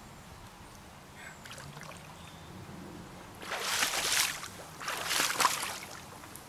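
Legs wading through river water: two splashing strides about halfway through, after a few seconds of faint river background.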